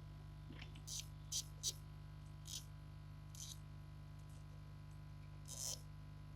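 Steady low electrical hum with about six short scratchy clicks, small tools or parts being handled at an electronics repair bench.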